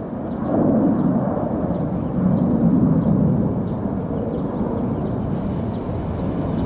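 Low, even outdoor rumble that swells about half a second in and again around two to three seconds, with faint high ticks at a regular pace above it.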